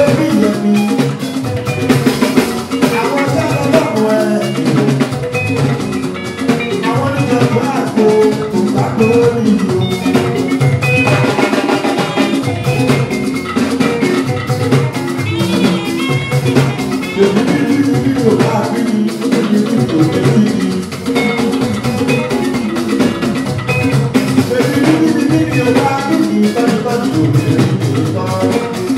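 Live band playing dance music: electric guitars, bass guitar and drums or hand percussion.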